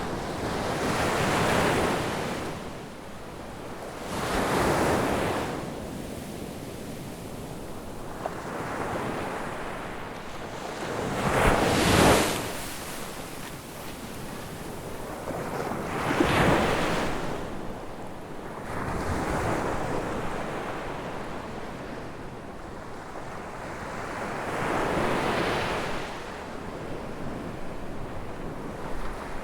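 Ocean waves breaking on a beach, in surges every few seconds, the biggest about twelve and sixteen seconds in, with wind on the microphone between them.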